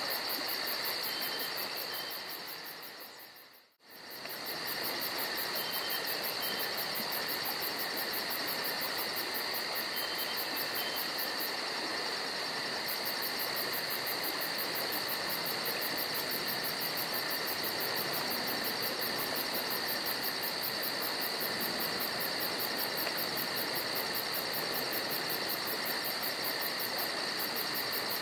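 Steady, high-pitched chorus of insects trilling, with a fast even pulsing in the top of the sound. It fades briefly to near silence and back about four seconds in.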